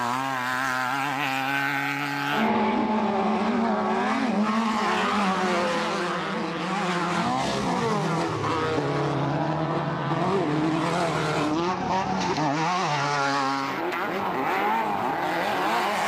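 Off-road race buggy engines revving up and down as the cars power through dirt turns, with the engine pitch rising and falling. The sound changes abruptly about two and a half seconds in and again near the end.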